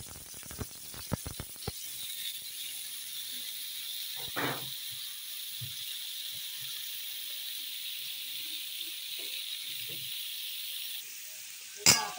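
Cubes of elephant foot yam (suran) sizzling in hot oil in an aluminium kadhai: a steady hiss, with a few crackles in the first two seconds. Near the end a metal spatula knocks and scrapes against the pan.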